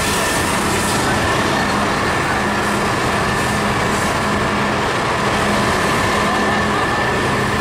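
An engine running steadily, a constant dense noise with a steady low hum and a thin high whine that do not change.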